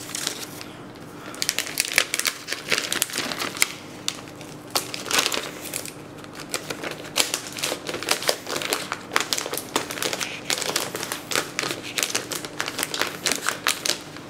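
Clear plastic wrap crinkling and crackling as it is peeled off a laptop lid by hand, a dense irregular run of crackles that picks up after the first second or so.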